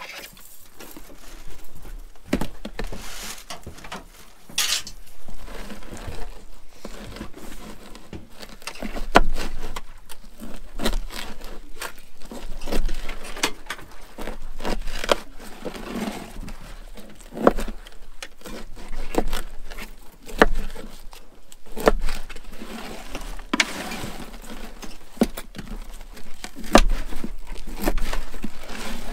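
Irregular clicks, knocks and rattles of longline hooks and bait being handled while baiting halibut longline hooks.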